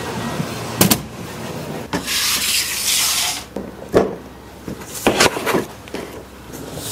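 Hands handling objects: a few sharp clicks and knocks, with a stretch of scraping, rubbing noise lasting over a second about two seconds in.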